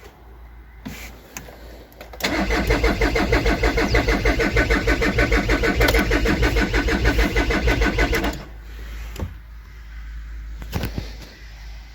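VW engine cranking on the starter for about six seconds with an even, rhythmic pulsing, then the starter stops without the engine catching. This is the crank-but-no-start fault that the uploader links to crankshaft/camshaft position correlation codes (P0016, P0341).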